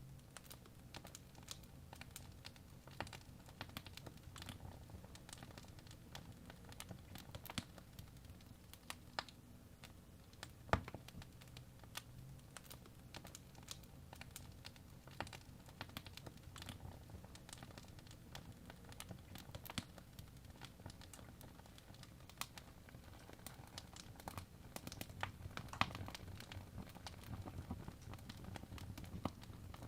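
Wood fire in a fireplace crackling: irregular sharp pops and snaps over a low steady rumble, with one louder pop about eleven seconds in.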